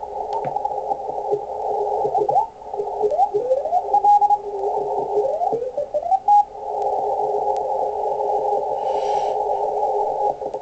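Icom IC-7600 receiver in CW mode with its 500 Hz filter, tuned across the 80-metre CW band. Hiss is squeezed into a narrow pitch band by the filter, and Morse signals glide through it in pitch as the dial sweeps past them. After about six and a half seconds the tuning stops and a steady filtered band of noise and signals remains.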